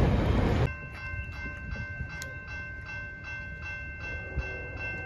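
Freight train cars rumbling past, cut off abruptly less than a second in. Then a railroad crossing bell ringing steadily at about three strokes a second, with the gates down.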